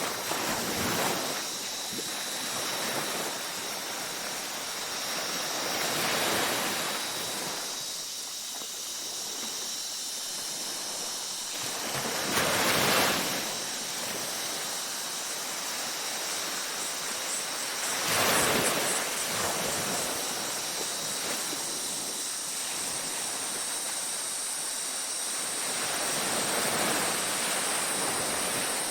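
Ocean waves breaking and washing up a beach, swelling about every five to eight seconds, with the loudest surges about midway. A steady high-pitched chirring of night insects runs underneath.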